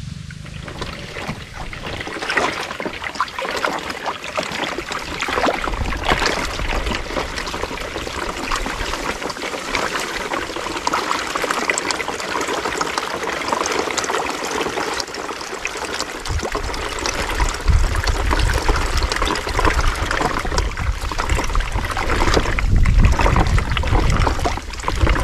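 Shallow creek water trickling and splashing around the wheels of a plastic toy truck and its trailers moving through it. A low rumble joins about two-thirds of the way in.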